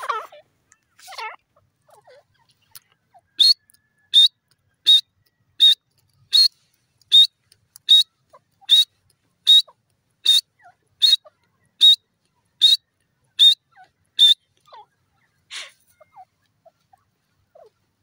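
Grey francolin calling: a series of about fifteen sharp, high notes, evenly spaced a little under a second apart, each ending in a slight upward flick. A couple of fainter notes follow near the end.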